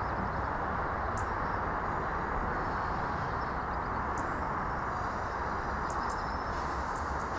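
Prussian T3 steam tank locomotive and its coaches moving slowly away in the distance: a steady, even running noise, with a few short bird chirps above it.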